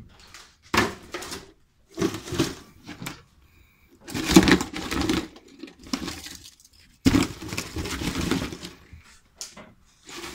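Stripped copper windings and small stator coils being handled and moved about in a plastic tub, in about five separate bursts of clatter with short pauses between.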